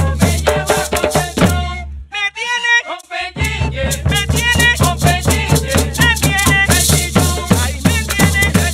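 Colombian gaita ensemble playing a porro: a cane gaita flute carries the melody over shaken maracas and hand drums. About two seconds in, the drums and maracas stop for about a second, leaving the gaita alone, then the full band comes back in.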